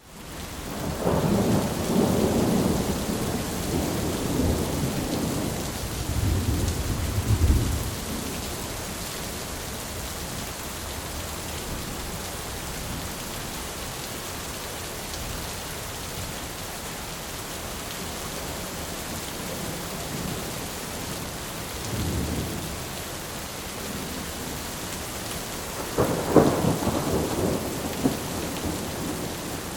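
Heavy steady rain with rolls of thunder: a long rumble in the first several seconds, a smaller one past the middle, and a sharper crack and rumble near the end.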